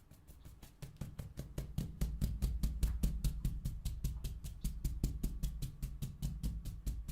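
Rapid, even drumming of stiffened fingertips tapping on a person's chest, over the sternum, collarbones and ribs, with the breath held. About seven or eight taps a second, growing louder about a second in.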